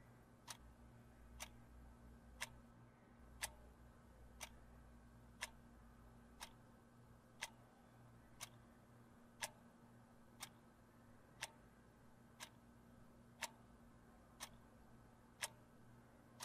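A clock ticking steadily, about once a second, over a faint low hum.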